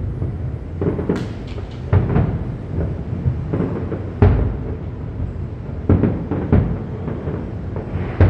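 Aerial fireworks bursting: a run of about nine deep booms at uneven intervals, with a rumble between them. The loudest comes about four seconds in, and a few sharp crackles come just after the first boom.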